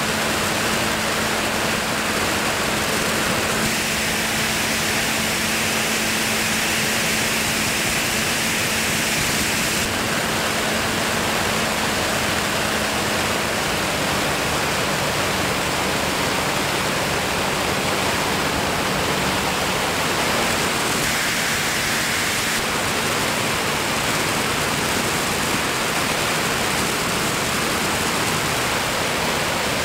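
Wind rushing over the camera's microphone in free flight, a dense steady hiss, with a faint low steady hum underneath.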